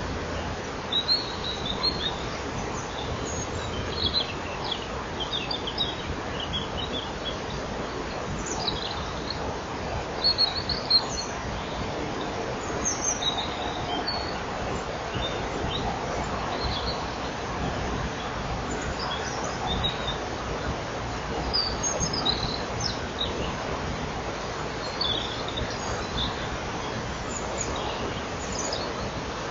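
Dawn chorus of songbirds, led by Eurasian wren and European robin: clusters of short high notes come and go over a steady hiss, loudest around the first few seconds and about ten seconds in.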